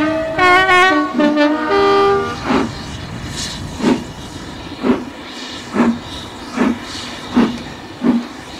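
Steam locomotive exhaust beats, about seven chuffs that start slow and quicken as the engine gets under way. Pitched, tuneful tones fill the first two seconds before the chuffs begin.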